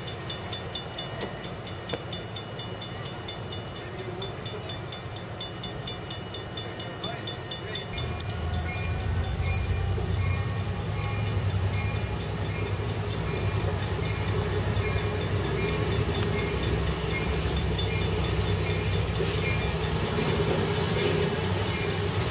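Amtrak Pacific Surfliner passenger train pulling out of the station: about 8 seconds in, the locomotive's low engine rumble swells as it powers up, and the bilevel cars roll past steadily. A short high beep repeats about once a second from then on.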